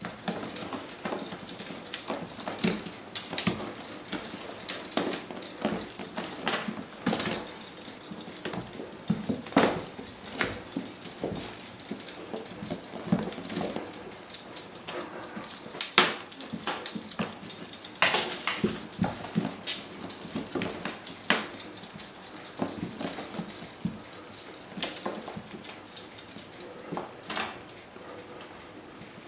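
Kittens playing on a tile floor and a fleece cat bed: irregular taps, scuffs and soft knocks of paws and bodies.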